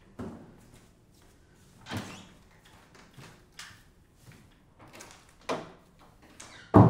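Scattered dull knocks and bumps a second or two apart, then a single loud door slam near the end.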